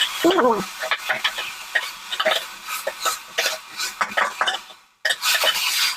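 A ladle stirring herbal greens frying in oil in a pan: irregular scrapes and clinks of the spoon against the pan over a light sizzle. The sound breaks off for a moment near the end, then the sizzle comes back denser.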